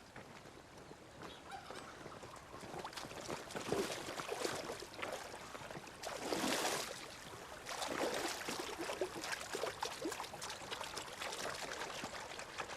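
River water splashing and pouring as a person washes in it, in uneven swells, the loudest splash about six and a half seconds in.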